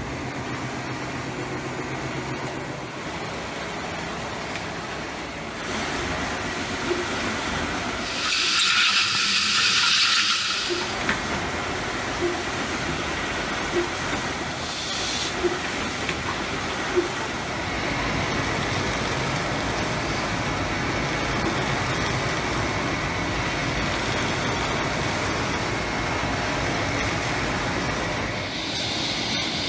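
Steady noise of concrete-production machinery running in a paving-tile plant. About a third of the way in there is a loud hiss lasting about two seconds, and for a while light clicks come about every second and a half.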